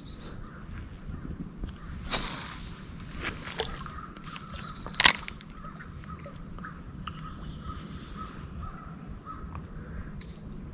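Creek-side outdoor ambience: a steady high-pitched insect drone with faint repeated calls. A rustle about two seconds in and a few sharp knocks, the loudest about five seconds in.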